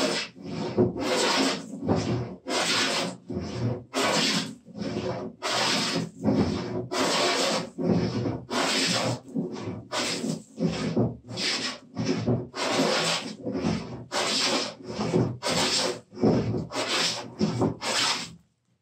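Wooden jointer plane taking quick, repeated strokes across a workbench top to flatten it, each pass a rasping swish of the iron cutting a shaving, about two strokes a second. The strokes stop abruptly near the end.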